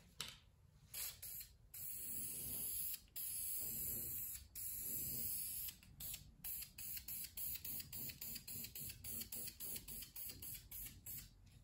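Aerosol spray can hissing: a few longer sprays over the first half, then a quick run of short bursts, about two a second.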